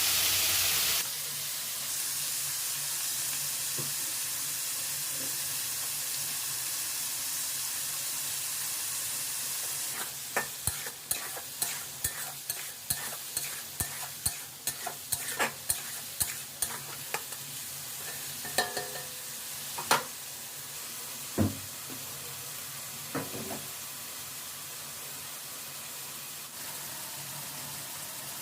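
Chopped carrot, capsicum, green chillies and yardlong beans sizzling as they fry in oil and ghee in a pan. From about ten seconds in, a spatula scrapes and taps against the pan in quick strokes for several seconds, followed by a few louder knocks.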